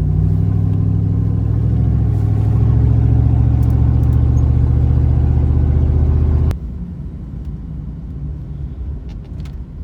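Ford 460 big-block V8 truck engine running steadily under throttle, getting a little louder about two seconds in. About six and a half seconds in it cuts off abruptly to a much quieter low rumble.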